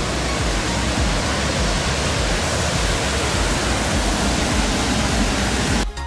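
Loud, steady rush of a rocky mountain stream cascading over boulders just below, with a low rumble underneath. It dips abruptly at the very end.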